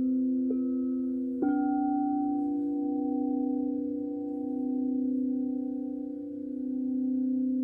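Frosted quartz crystal singing bowls ringing in long, overlapping sustained tones. A mallet strikes a bowl about half a second in and again about a second and a half in, the second strike adding a higher note. The notes swell and fade slowly as they ring on.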